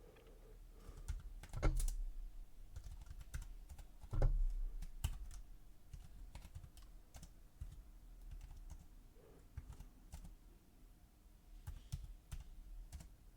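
Typing on a computer keyboard: irregular key clicks, with a couple of louder strokes around two and four seconds in.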